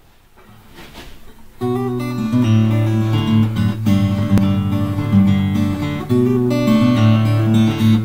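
Background music: acoustic guitar strumming chords. It comes in sharply about a second and a half in, after a faint rising swell.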